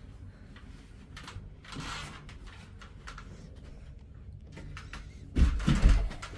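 Faint handling and rustling, then a short cluster of heavy thumps and knocks about five and a half seconds in, from parts of a bed frame being worked on.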